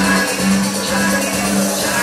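Background music with a repeating pattern of held low notes.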